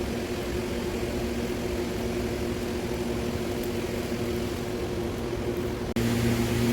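Electric motor turning a chicken rotisserie spit, running with a steady hum and a constant tone; the sound steps up suddenly and louder about six seconds in.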